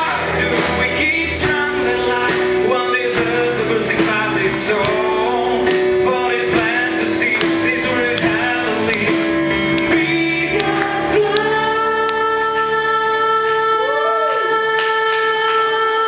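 A group of singers performing a song live with acoustic guitars and a small band playing along. About eleven seconds in they settle on a long held chord.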